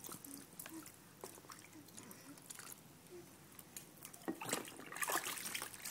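Water dripping and trickling in a plastic baby bathtub as it is poured from a cup over an infant's head, with a few louder splashes from about four seconds in.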